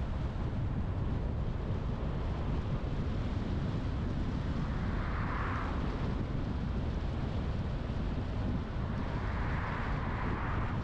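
Car driving on the road: a steady low rumble of tyre and engine noise, with two brief swells of higher hiss, one about halfway through and one near the end.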